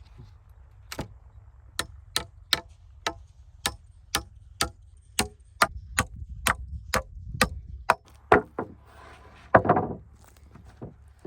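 A steady run of sharp knocks, about two a second, over a low rumble that drops away late on, then a short rough scraping noise near the end.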